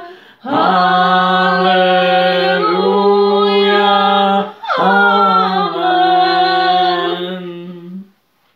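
A man singing a slow hymn alone, without accompaniment, in two long drawn-out phrases; the second phrase fades out shortly before the end.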